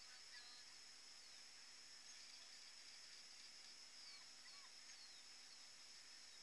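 Near silence: faint outdoor hiss, with a few faint, short, high chirps scattered through it.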